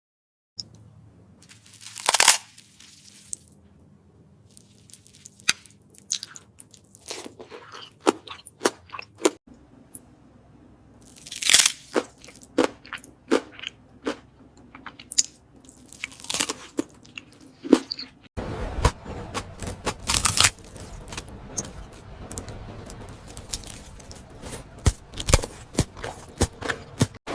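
Close-miked eating sounds: a person chewing and biting, with sharp crunches and wet mouth clicks at an uneven pace. The background changes abruptly twice, as clips are spliced together.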